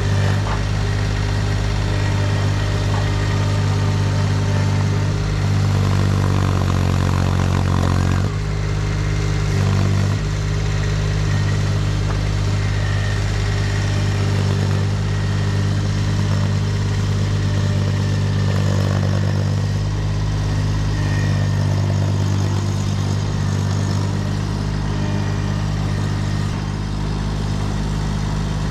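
Kubota D1105 three-cylinder diesel of a Baumalight TRL620D mini track loader running steadily while the machine works. Its pitch rises for a couple of seconds about six seconds in, then drops back suddenly.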